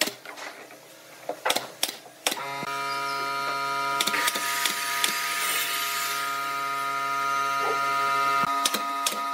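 Pneumatic nail gun firing a series of single shots into pine strips, each a sharp click-thump. About two and a half seconds in, a steady droning hum sets in under the shots and continues.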